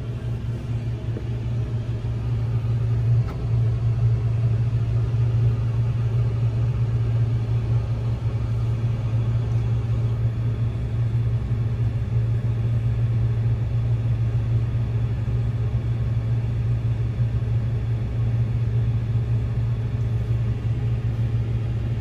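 Combine harvester's diesel engine running with a steady low drone, heard from inside the cab; it grows a little louder about three seconds in.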